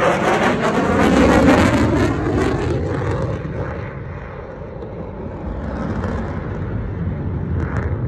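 F-35A Lightning II's single F135 afterburning turbofan engine passing at airshow display speed: a loud jet roar with a sweeping, wavering tone, loudest about a second and a half in, then fading to a steady distant rumble as the jet pulls away.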